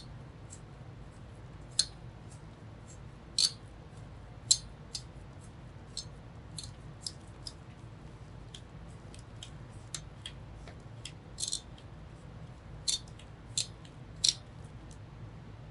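Irregular sharp clicks and ticks of small hard computer parts and screws being handled, over a low steady hum.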